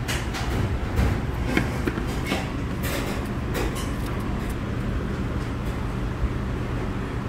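Restaurant dining-room ambience: a steady low hum, with a few light clicks and clinks of tableware in the first four seconds.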